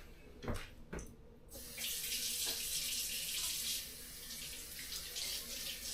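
A couple of light knocks, then a kitchen tap turned on about a second and a half in, with water running steadily into the sink.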